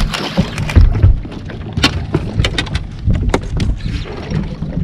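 Wind rumbling on the microphone, with scattered sharp clicks and knocks at irregular moments.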